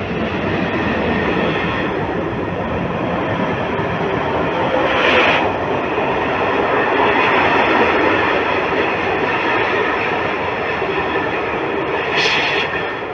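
A České dráhy passenger train running past the platform, its wheels rumbling steadily on the rails. Two short, higher-pitched rises come through, about five seconds in and again near the end.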